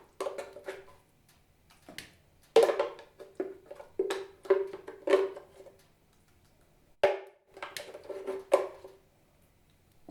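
A kitchen utensil knocking irregularly against a container, about a dozen hard knocks, each ringing briefly at the same pitch.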